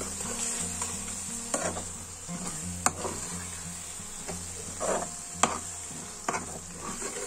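A metal spoon stirring and scraping thick masala in a metal kadhai, with a steady sizzle and a few sharp clinks of the spoon against the pan, over a low background hum.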